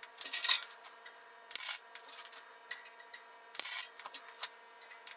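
Short MIG tack welds fixing steel rod hooks onto a steel frame: a handful of brief crackling bursts at irregular intervals over a faint steady hum.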